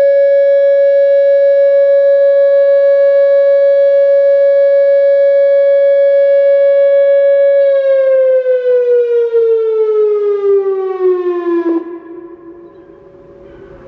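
Whelen WPS-2905 electronic outdoor warning siren sounding its steady Short Alert tone, a loud single-pitch wail. About eight seconds in it winds down, its pitch falling smoothly, and then it cuts off sharply, leaving a much fainter, lower siren tone sounding near the end: the end of the test alert.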